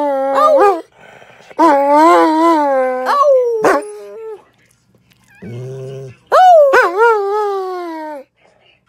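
Dog howling: a series of drawn-out, wavering howls that slide up and down in pitch, with short breaks between them and one lower-pitched groan a little past the middle.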